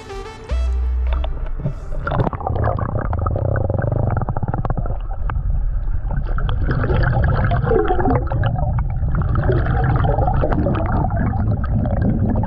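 Water heard through a camera held under the lake surface: muffled gurgling and bubbling over a low rumble, full of small clicks and crackles as a paddle blade moves through the water trailing bubbles. It starts about two seconds in.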